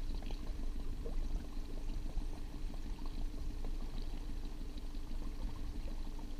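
Small Honda outboard motor running steadily at trolling speed, with water churning and gurgling around the stern.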